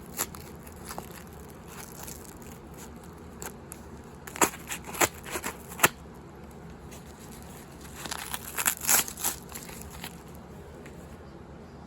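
A mailing package being cut open along the top, its packaging crackling and crinkling in two spells of sharp clicks, one about four seconds in and one near nine seconds.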